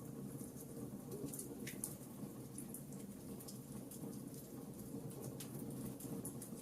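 Wood fire crackling in a fireplace: a steady low rush of burning with frequent small, sharp pops, one a little louder about two seconds in.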